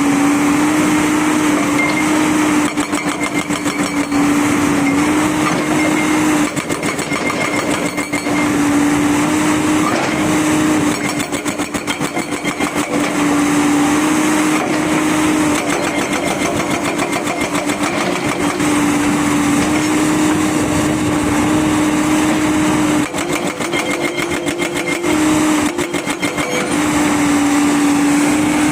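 JCB 205 excavator running with a steady engine hum while its hydraulic rock breaker hammers in spells of rapid, evenly spaced blows, each spell lasting a second or two and recurring several times.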